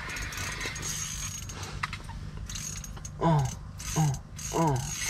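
Fishing reel being cranked, its gears giving a steady fine clicking whir for about the first three seconds. From about three seconds in come four short cries that fall in pitch, roughly half a second apart, louder than the reel.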